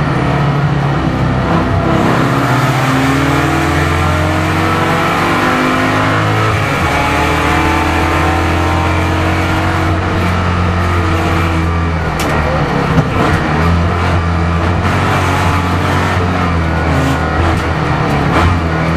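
Camaro race car's engine heard from inside the cockpit, running loud and fairly steady at moderate revs, its pitch rising and falling gently with the throttle. A single sharp click comes about twelve seconds in.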